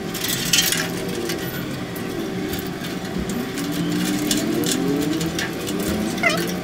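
Cables and connectors being handled inside a wall-mounted equipment rack: scattered clicks and rustles, over a steady engine-like hum whose pitch rises and falls around the middle.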